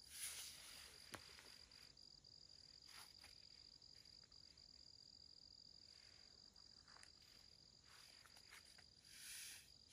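A steady, high-pitched insect trill that pulses slightly, with a few brief, soft rustling swishes.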